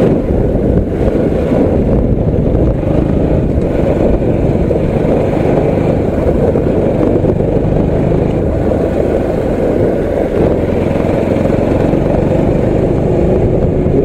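Motorcycle engine running steadily while riding, mixed with a low, even rush of wind on the microphone.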